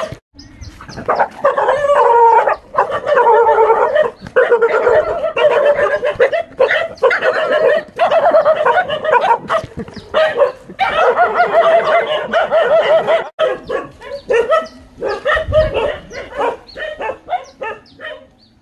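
A dog barking and whining in long, wavering runs, with quicker short yips near the end.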